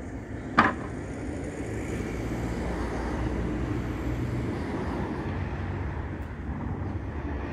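Steady low rumble of distant engine noise, with one sharp knock about half a second in.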